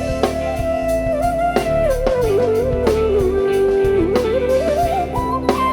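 Instrumental interlude of a live devotional bhajan band: a single melody line slides down and back up over a steady bass and regular drum strikes, climbing higher near the end.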